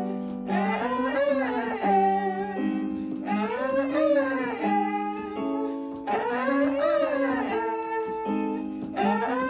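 Singing-exercise drill on the A vowel: a singer sings a phrase that rises and falls in pitch, three times about every three seconds and a fourth time starting near the end. After each phrase comes a short run of steady accompaniment notes stepping through new pitches.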